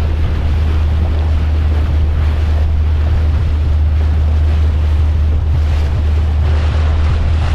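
Steady wind rumbling on the microphone over water splashing and rushing as a boat moves across choppy lake water.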